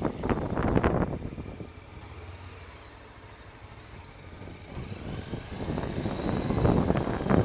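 Motorcycle running under heavy wind rumble on a helmet-mounted microphone. The noise comes in gusts at first, eases off about two seconds in, and builds up again from about five seconds in as the bike gets moving.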